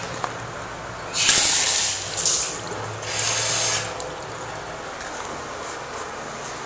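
Water from a bathroom sink's two-handle faucet running into the porcelain basin in three short spurts over about three seconds, the first the loudest.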